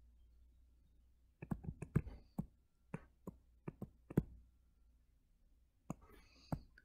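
Stylus tapping and clicking on a tablet screen during handwriting: scattered sharp clicks in a few quick clusters, the loudest about two and four seconds in, over a faint low hum.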